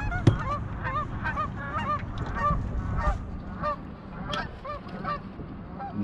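Geese honking: many short overlapping calls, several a second, over a low rumble.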